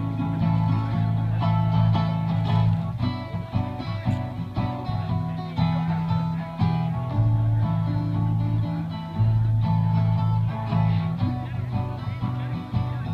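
Two acoustic guitars playing an instrumental passage live, with strummed chords that change about once a second.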